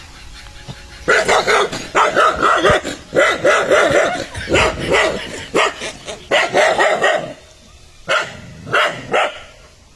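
Dogs barking aggressively at their reflection in a mirror: a rapid run of loud barks lasting about six seconds, then two more barks near the end.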